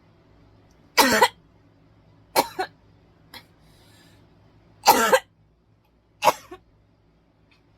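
A person coughing in four short, harsh fits, each made of two quick coughs close together.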